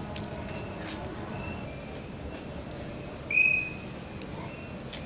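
Crickets chirring steadily in a constant high trill. About three seconds in, a brief, loud high whistle-like note cuts across it.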